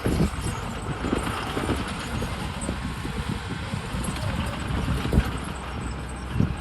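Heavy earthmoving machinery running with a low engine rumble and irregular clanking and rattling.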